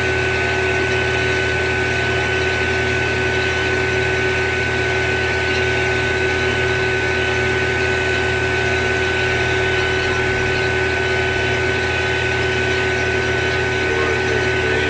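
Fieldpiece refrigeration vacuum pump running steadily: an even hum with a constant whine. It is evacuating a small refrigeration system through one large hose on the low-side port, with the vacuum deepening into the low thousands of microns.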